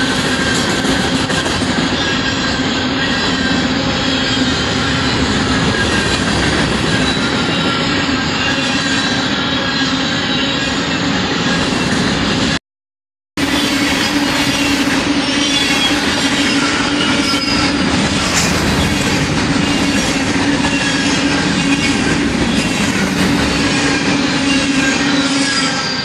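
Freight train of covered hopper cars rolling past close by: a steady rumble and clatter of steel wheels on the rails, broken by a brief cut to silence about halfway through.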